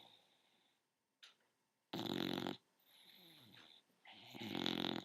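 A young bulldog snoring: two loud snores, about two seconds in and again near the end, with a quieter breath between them whose pitch falls.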